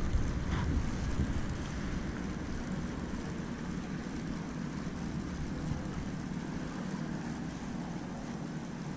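Steady low outdoor rumble with no distinct source, with a brief faint rattle about half a second in.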